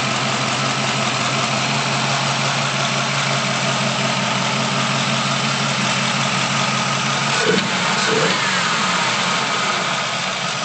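Chevrolet 350 cubic-inch Fast Burn 385 hp small-block crate V8 idling steadily through an open exhaust with ceramic-coated shorty headers. There is a brief, slightly louder moment about seven and a half seconds in.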